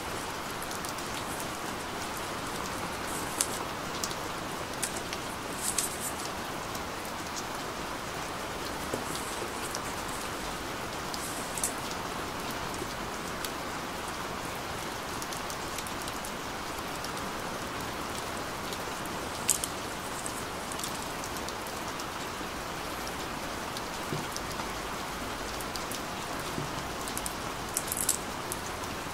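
A steady rain-like hiss, with a few short light clicks and crinkles scattered through it from cardboard and paper packaging being handled.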